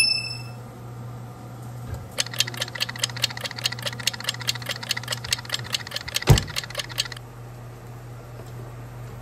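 Electronics of a Sharp Healsio oven: one short electronic beep, then a quick even run of clicking beeps, about five a second for some five seconds, as the menu/time dial is turned, over a steady low hum. One loud thump comes about six seconds in.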